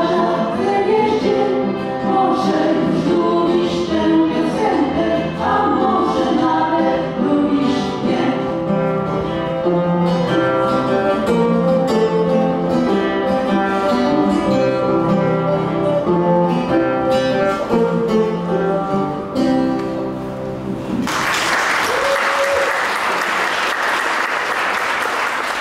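Live acoustic folk song: a woman singing with acoustic guitars and violin. The song ends about 21 seconds in and the audience applauds for the rest.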